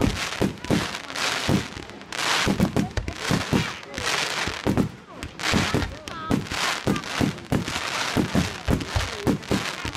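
Fireworks display going off: many sharp bangs in quick succession, with crackling hiss swelling up a few times as shells burst.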